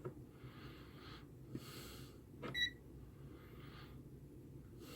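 Quiet bench handling of a Zotek ZT-Y digital multimeter as its function is switched: a small click, then a short high beep about two and a half seconds in, with faint breathing.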